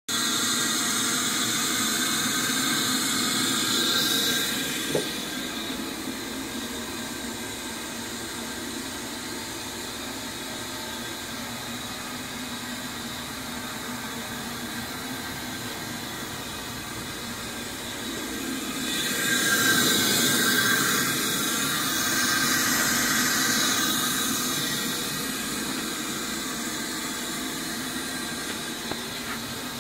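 Northtech CFS-18R upcut cut-off saw running, its belt-driven 10 HP motor and 18-inch blade giving a steady whirring hum with a hiss. A sharp click comes about five seconds in, and the sound swells louder for a few seconds past the middle.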